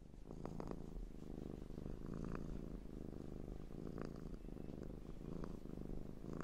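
A cat purring, a steady low rumble that swells in over the first second and then holds.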